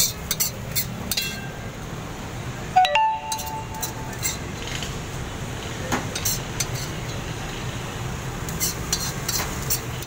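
Metal ladle and pan holder clinking and scraping against iron karahi pans, with one louder ringing metal clang about three seconds in. A steady low hum runs underneath.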